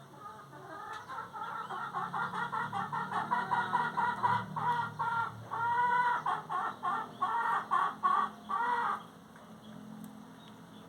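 Chicken clucking: a run of quick, repeated clucks that carry on for about eight seconds, with a few longer, drawn-out notes toward the end, then stopping.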